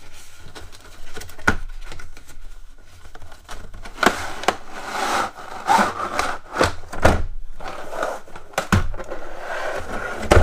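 A cardboard box and its packaging being opened and handled: rustling and scraping with a number of sharp knocks and clicks at irregular intervals.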